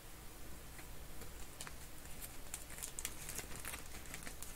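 Faint, irregular light clicks and taps of small objects being handled at a desk, several a second, over a low steady hum.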